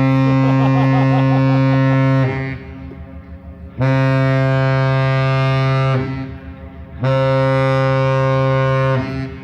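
Freighter's horn sounding deep blasts: one already under way that stops about two seconds in, then two more of about two seconds each with short gaps between.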